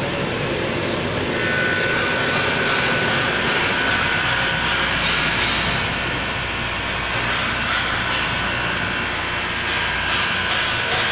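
Cherokee SZM-9S nine-motor straight-line glass edging machine running, its wheels grinding and polishing the edge of a glass sheet as it feeds through: a steady machine noise, with a thin steady whine that sets in a second or so in.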